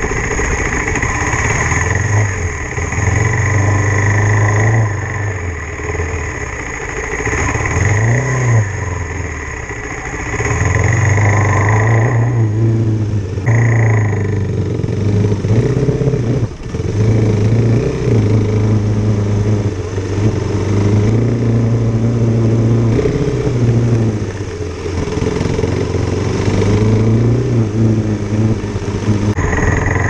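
Motorcycle engine running as it is ridden along a dirt trail, its pitch rising and falling again and again with the throttle, over a steady rush of noise. The engine sound dips sharply for a moment about halfway through.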